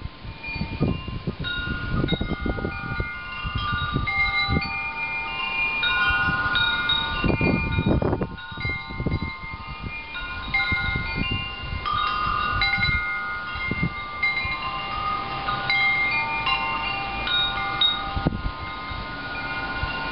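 Metal wind chimes ringing irregularly in gusty storm wind, many overlapping notes at several pitches. Low wind rumble on the microphone swells and fades underneath, strongest about seven to eight seconds in.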